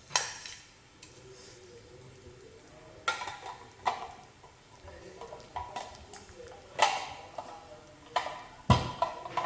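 Plastic parts of a hand-crank meat grinder clicking and knocking as they are handled and fitted together, a few separate sharp clicks, then a heavier thump near the end.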